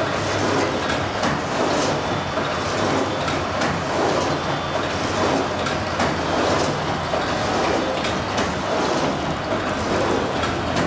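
Kolbus BF 523 bookbinding line running: a loud, steady mechanical clatter with many small rapid clicks.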